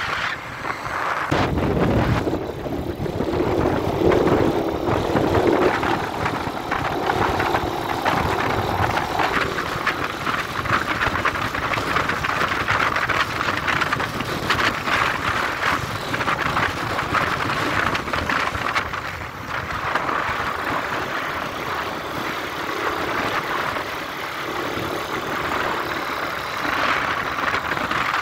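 Motorcycle engine running steadily while riding at road speed, under a constant rush of wind noise.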